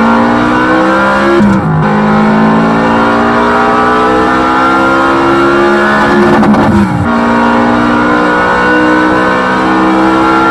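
Onboard sound of an RC short course truck's electric motor and drivetrain whining as it accelerates down the track. The pitch climbs steadily, drops sharply as the throttle comes off about a second and a half in and again around the middle, then climbs again.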